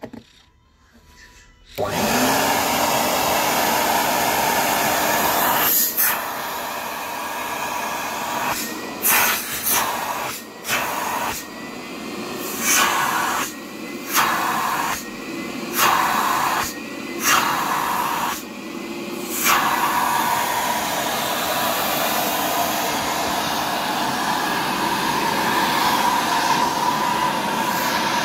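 Cleanfix TW 300 carpet and upholstery wet vacuum's motor switched on about two seconds in, rising to speed and running with a loud rush of air. Through the middle it dips and changes note for a moment about seven times, then runs steadily again.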